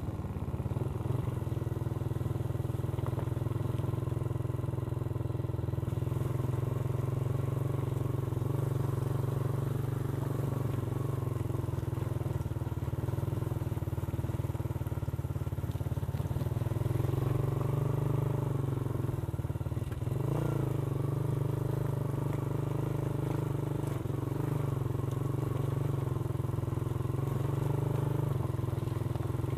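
Motorcycle engine running steadily while riding, its note dipping and rising a couple of times past the middle of the stretch.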